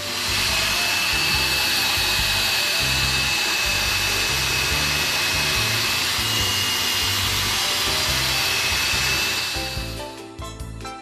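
Slow-speed pneumatic air drill with a carbide cutter reaming out a tire puncture: a steady air hiss with a high whine, running for about ten seconds and then winding down.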